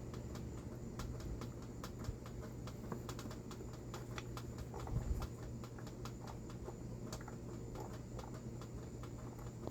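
Light, irregular clicking and ticking of a hand tap being turned into a cross-threaded screw hole to chase the threads back into shape, over a steady background hum.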